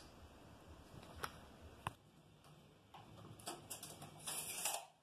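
Faint workshop handling sounds of a pencil marking a plywood plank and a steel tape measure being handled on it: two light sharp ticks about a second in, then a longer scratchy rubbing near the end.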